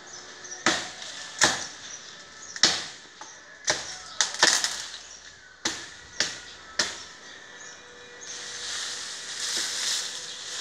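About nine sharp chopping strokes of a blade into a tree branch, spaced irregularly, some in quick pairs. Near the end, leaves and branches rustle for about two seconds.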